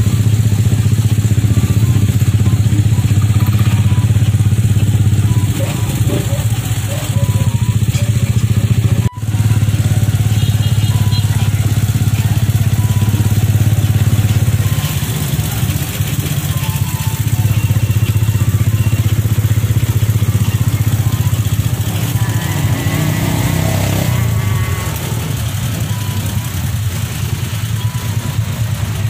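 Motorcycle engine of a Philippine tricycle (motorcycle with sidecar) running steadily under way, heard from inside the sidecar, with a short break about nine seconds in.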